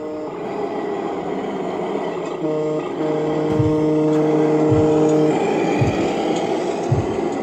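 Radio-controlled Mercedes Actros model truck driving past close by, with simulated truck sound from its sound unit. A steady pitched horn-like tone sounds for about three seconds mid-way, with a brief break near its start, and low thuds come about once a second in the second half.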